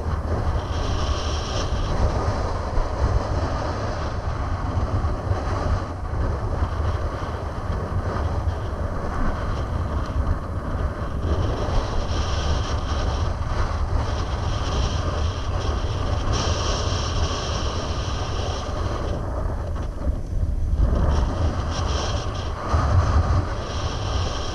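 Wind buffeting the microphone in a steady low rumble, with choppy water splashing against a concrete embankment.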